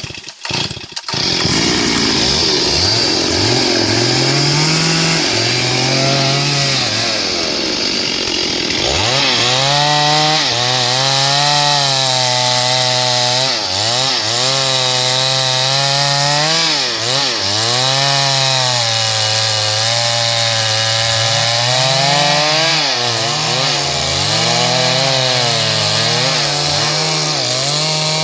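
STIHL MS382 two-stroke chainsaw running hard through wood. It starts up about a second in, and its engine note repeatedly drops and climbs back as the chain loads and frees in the cut.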